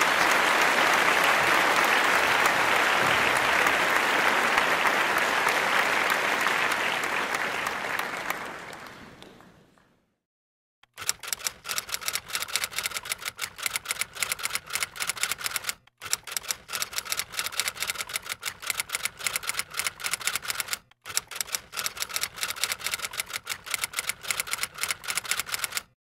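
Applause that fades away over the first ten seconds or so. After about a second of silence, a rapid run of typing clicks follows as a sound effect, broken by two short pauses.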